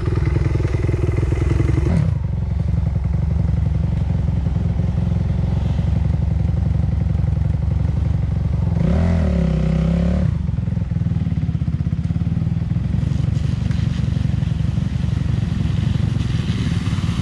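Dirt bike engine idling steadily, with one brief throttle blip about nine seconds in.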